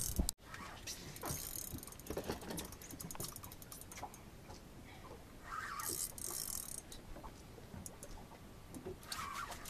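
Spinning fishing reel ratcheting in irregular runs of fast clicks, under load from a hooked shark on a bent rod.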